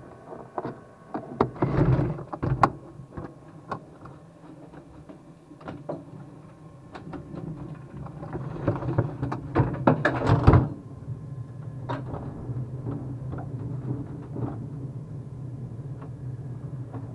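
Clicks, knocks and rattling of a Spitfire's cockpit canopy being unlatched and slid open, with the loudest clatter about two seconds in and again around ten seconds. A steady low hum runs underneath from about eight seconds on.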